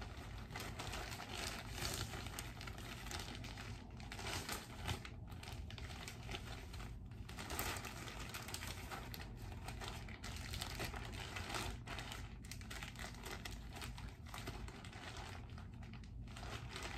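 Plastic shower cap crinkling and rustling as it is pulled over the hair and adjusted by hand, close to the microphone, in uneven rustles.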